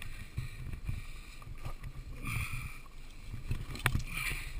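Low rumbling wind and handling noise on a body-worn camera's microphone as a rescue climber moves down through cliffside brush, with rustling and a few sharp clicks or scrapes near the end.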